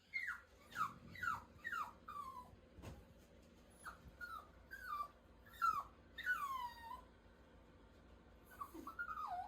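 A dog whining in a run of short, high whines, each sliding down in pitch, pausing for a moment near the end and then starting again.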